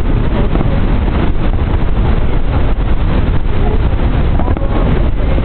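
Loud, steady rushing noise with a heavy low rumble, with faint voices beneath it.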